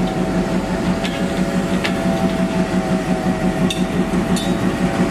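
Diesel locomotive engine running at idle close by: a steady deep throb with a steady whine above it, and a few sharp metallic ticks.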